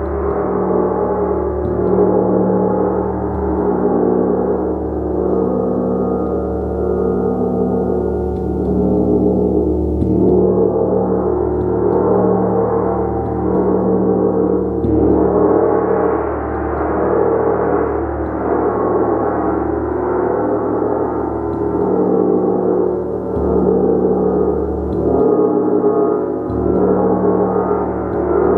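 Gong played continuously: a dense, sustained wash of overlapping ringing tones that swells and ebbs every second or two without ever dying away.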